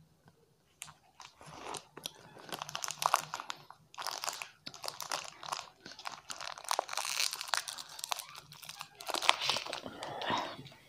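Plastic wrapper of a Treat chocolate-wafer packet crinkling and crackling as it is handled and opened close to the microphone, in dense spells about a second in, then from about four seconds in and again near the end.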